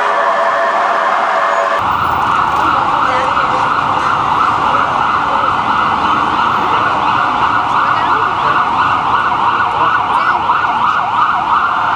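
Ambulance siren: a steady-pitched tone that changes abruptly about two seconds in to a fast warbling yelp, rapidly sweeping up and down in pitch over traffic noise.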